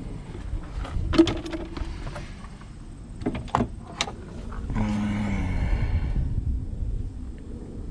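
Hands working the shift linkage and its plastic clips under a car's hood: several sharp clicks and knocks, then a drawn-out scraping or sliding sound lasting over a second about five seconds in.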